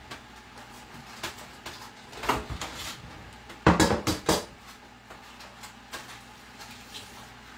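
Dishes and cutlery clattering and knocking together on a kitchen counter: a short clatter about two seconds in, then a louder burst of knocks around four seconds in, with a few light taps between.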